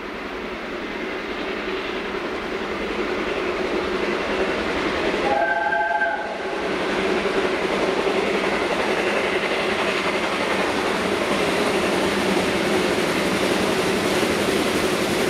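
Narrow-gauge Garratt steam locomotive approaching with its train, its running growing louder over the first few seconds and then holding. A short whistle blast about five seconds in.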